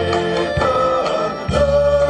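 Male vocal trio singing a Russian folk song in harmony over an instrumental backing track with a bass line. A new long held note begins about one and a half seconds in.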